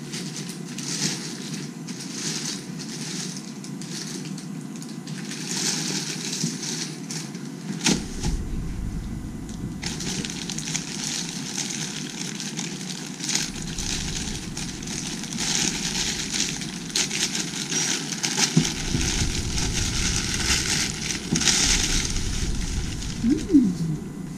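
Plastic poly mailer bag crinkling and rustling in irregular bursts as it is torn open and handled by hand. A short squeak that rises and falls in pitch comes near the end.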